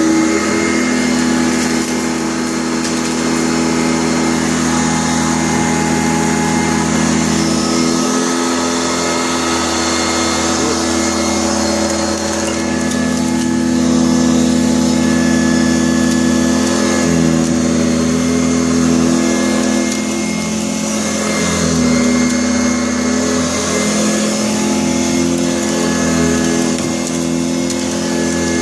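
Sanitaire SC684 upright vacuum cleaner running steadily, its motor drone swelling and easing slightly as it is worked across the floor.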